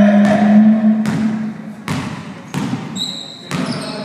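A basketball bouncing on a hard gym floor, a sharp impact every half second to a second. It starts over a loud steady low tone that fades out about a second and a half in. Short high squeaks come in near the end.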